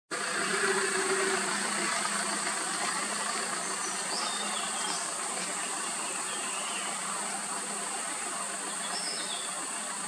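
Steady, high-pitched chorus of insects, with a few faint short bird chirps about four seconds in and again near the end.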